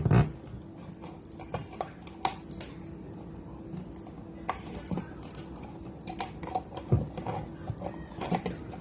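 Handling noises of a wall outlet and its wires being pushed back into the electrical box: scattered clicks and knocks, with a louder thump at the start and another about seven seconds in, over a faint steady hum.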